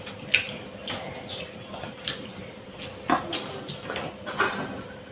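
Eating by hand at a table: irregular soft clicks and smacks of chewing, and fingers working rice against plates, a few each second with a couple of louder ones about three seconds in.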